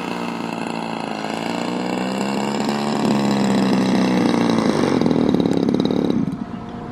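RC model airplane engine running, growing louder and rising slightly in pitch, then dropping away sharply about six seconds in.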